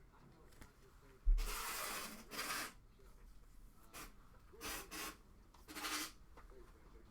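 Trading cards being handled: a knock about a second in, then several short rubbing, sliding sounds of cards and card holders moving against each other.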